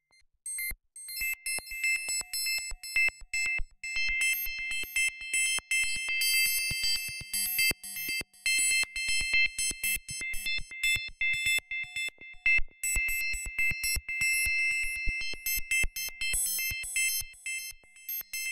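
Electronic title music made of rapid clicks and stuttering, high-pitched beeping tones, chopped into short pulses throughout.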